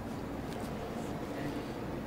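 Steady low background hum with no distinct event: room tone of an indoor recording.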